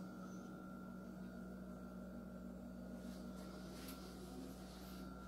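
Quiet room tone: a faint steady hum, with a few soft handling knocks about three and four seconds in.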